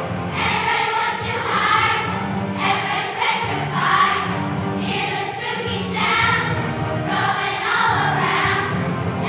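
Children's choir singing a song in unison, with musical accompaniment.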